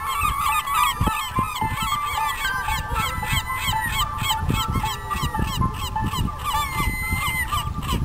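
A flock of gulls calling: many short, overlapping squawks, with one longer drawn-out call near the end, over a steady hum.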